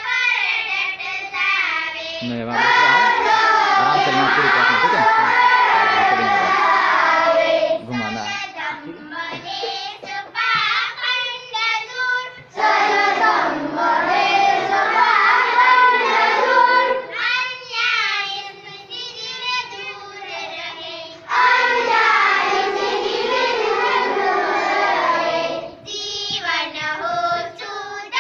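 A group of schoolchildren singing a prayer together in unison. The singing swells to full, loud passages three times, with thinner, quieter singing between them.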